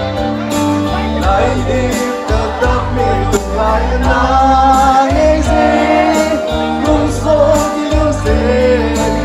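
A man singing into a handheld microphone over instrumental backing with bass and drums, amplified through a stage PA.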